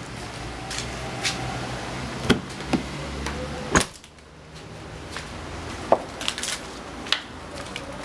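Sharp clicks and knocks of a hand working a 1995 Mercedes-Benz S 320's door handle and bodywork. They come one at a time, the loudest just before the middle.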